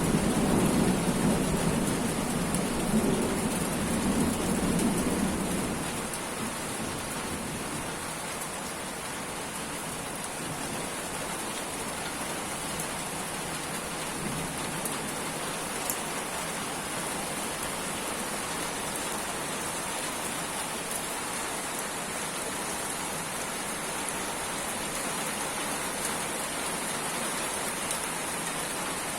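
Heavy thunderstorm rain falling steadily, with a roll of thunder rumbling at the start and dying away about six seconds in.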